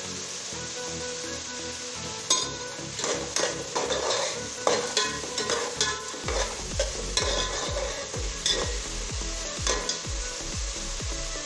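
A steel ladle stirring chopped onions frying in an aluminium pressure cooker, over a light sizzle. From about two seconds in there are repeated irregular clinks and scrapes of the ladle against the pot.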